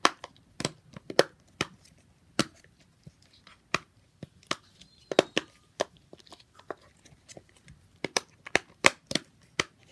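Fidget toys being clicked and popped by hand: a string of short, sharp clicks at an irregular pace, coming faster near the end.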